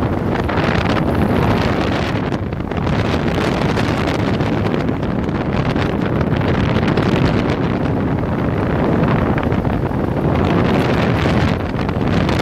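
Wind buffeting the microphone of a paramotor in flight, over the steady running of its engine. Two brief dips in loudness come about two and a half seconds in and near the end.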